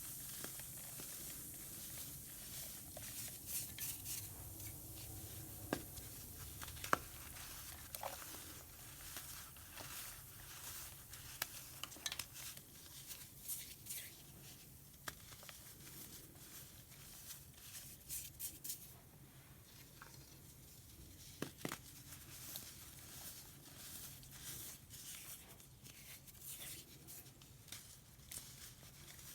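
Baking soda chunks fizzing in vinegar: a high, crackling hiss of bursting bubbles that slowly dies down, with scattered sharp pops and ticks throughout.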